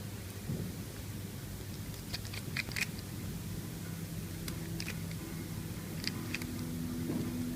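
Small sharp clicks and crackles from tools and phone parts being handled during an iPhone 6 screen repair: a quick cluster about two seconds in, then single clicks around five and six seconds in, over a faint low steady hum.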